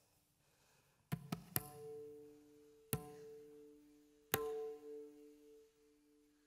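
Sparse struck percussion: three quick sharp strikes about a second in, then single strikes about three and four and a half seconds in. Each strike leaves a ringing two-note tone that slowly fades.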